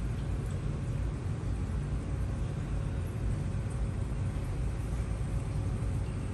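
Steady low rumble of a reef aquarium's pumps and water circulation, with a faint steady hum above it.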